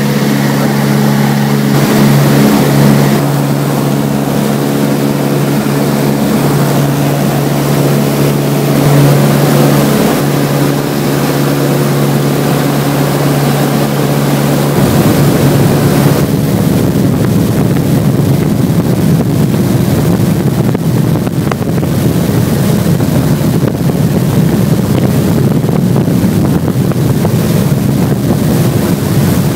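Light aircraft's piston engine and propeller droning steadily, heard from inside the cabin with wind rushing past. About halfway through, the steady engine hum gives way to a rougher, noisier rush of wind.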